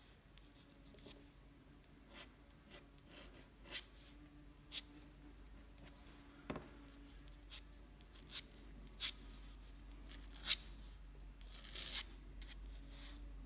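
Dip pen nib scratching on paper in short strokes: about a dozen brief scratches at irregular intervals, over a faint steady low hum.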